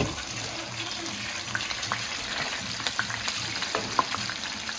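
Tiger shrimp frying in hot oil in a pan: a steady sizzle with scattered sharp pops of spitting oil.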